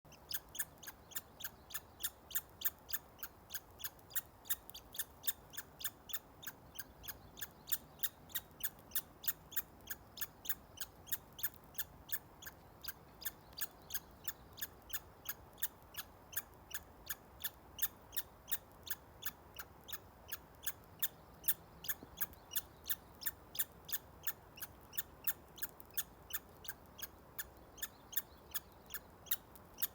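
A squirrel squeaking over and over while it eats: short, high, hiccup-like squeaks, about three a second, steady through the whole stretch.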